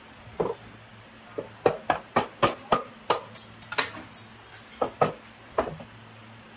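Metal being tapped and clinked: about a dozen sharp, uneven knocks with a short ring, most of them in a quick run around the middle, over a faint steady low hum.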